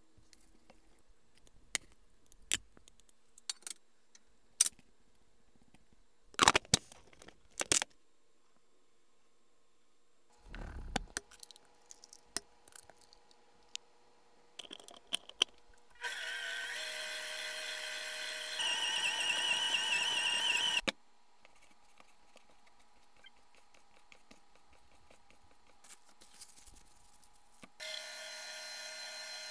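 Light clicks and knocks of kitchen handling, then a KitchenAid stand mixer's motor whining for about five seconds as it mixes pasta dough, stepping up to a higher speed partway. Near the end the motor starts again, driving the pasta roller attachment.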